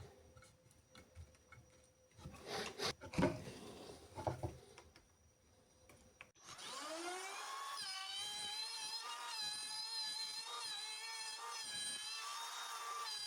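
Knocks and rubbing of wood being handled, then about six seconds in an electric power tool switches on, its whine rising quickly in pitch as the motor spins up and then running steady and high.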